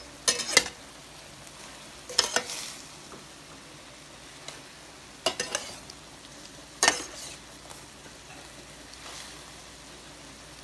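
A slotted spatula stirring a stir-fry of broccoli, shrimp and egg in a pan, with four short clusters of clattering scrapes against the pan about every one and a half to two seconds. A faint steady sizzle runs under them.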